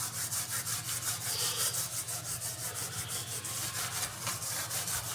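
Steel wool being scrubbed back and forth by hand on worn, pitted chrome trim from a 1964 Jaguar Mk2's rear window: a steady run of quick, even scratchy strokes, several a second.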